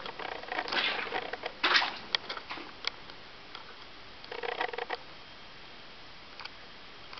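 Footsteps on the wet, stony floor of a mine gallery: irregular scuffs, splashes and a few sharp clicks, with the loudest steps about a second in and again near two seconds, one more burst at about four and a half seconds, then only faint background noise.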